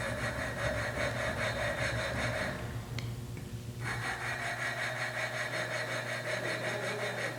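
Hand lapping of a Triumph Spitfire intake valve onto its seat: a gritty scraping of valve grinding compound as the suction-cup lapping stick is twirled back and forth. It comes in two long stretches, with a pause of about a second near the middle.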